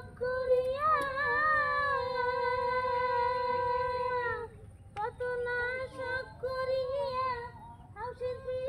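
A high voice singing long held notes: one note lasting about four seconds, then after a short pause a shorter, wavering phrase.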